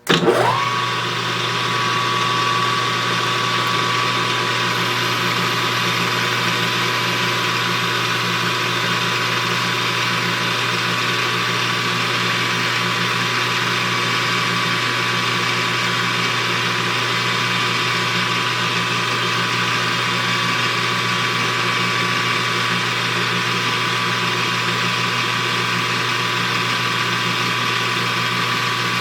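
Small metal lathe switched on, its motor and gearing spinning up with a rising whine in the first second, then running steadily through a turning pass with a high-speed steel tool bit.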